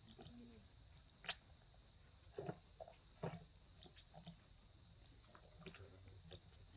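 Quiet forest ambience: a steady high-pitched insect drone with a few soft, scattered clicks and rustles.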